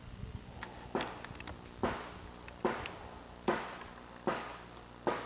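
Six sharp knocks at a steady pace, a little under a second apart, each dying away quickly.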